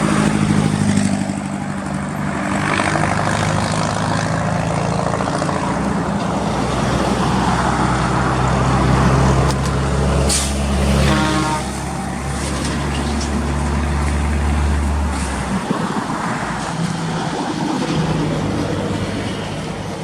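Heavy truck engine running with a steady low drone, with a short burst of air hiss about ten seconds in, followed by a falling tone.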